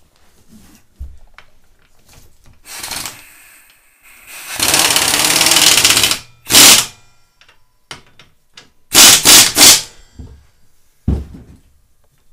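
Impact wrench hammering as it runs down the ATV's swing arm pivot bolt: one long run, a short burst, then three quick bursts as the bolt seats. A single knock sounds near the end.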